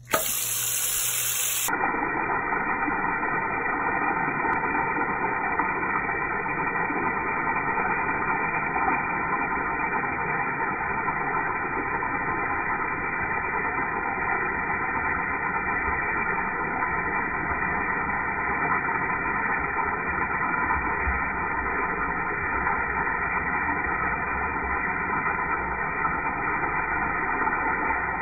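Tap water pouring steadily into a sink basin and swirling around the drain, a constant muffled rushing hiss.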